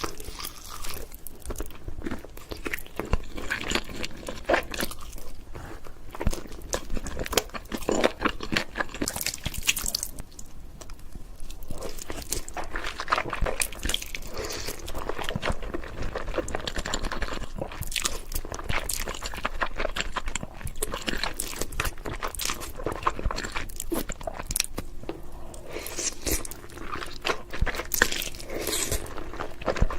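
Close-miked eating: steady biting, crunching and chewing, a run of many short crisp mouth sounds.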